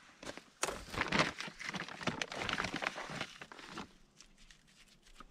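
Crinkling and rustling of a bag of pelletized limestone as a gloved hand reaches in and scoops lime out. The rustling is dense and busy for about the first three seconds, then thins to scattered faint rustles.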